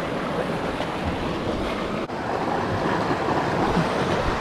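Creek water rushing over rocks in a steady wash of whitewater noise, with some wind on the microphone; it grows a little louder about halfway through.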